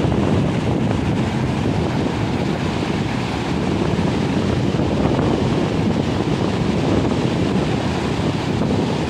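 Muddy floodwater rushing and churning through rapids in a swollen river, making a steady, even noise.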